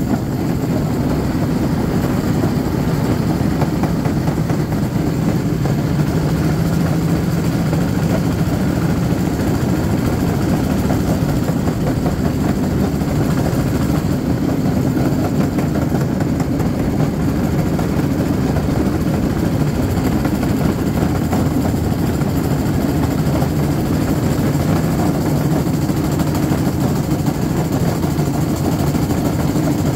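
Railcart's small engine running steadily as the cart rolls along the rails.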